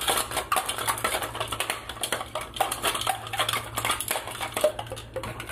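Stainless steel cocktail shaker being shaken hard, with ice rattling inside in a fast, continuous clatter.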